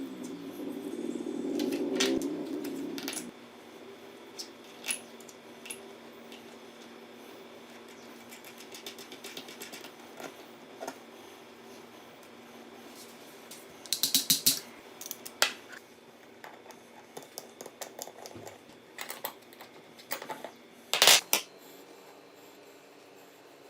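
A motor hum runs for about three seconds and stops. Then come scattered clicks, taps and clatter of small hard objects being handled, with two louder bursts of clatter later on.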